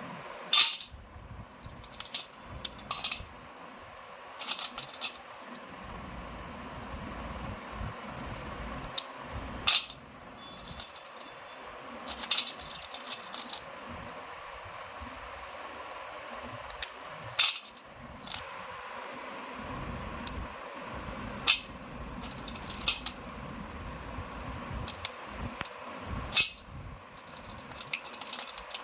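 Slate pencils giving sharp, crisp clicks and snaps at irregular intervals, roughly one every second or two, over a faint steady background noise.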